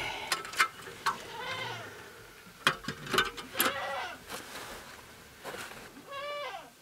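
A few short, high animal cries, the clearest near the end rising and falling in pitch, with sharp clicks and knocks of small objects being handled in the first few seconds.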